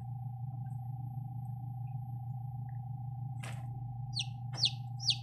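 Newly hatched chicks peeping: short, high cheeps that fall sharply in pitch, three of them in the last second or so, after a single click about three and a half seconds in. A steady low hum with a faint steady tone runs underneath.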